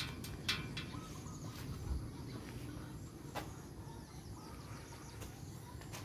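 Quiet outdoor ambience: faint high bird chirps over a steady low rumble, with a few light sharp clicks, the clearest about half a second in and about three and a half seconds in.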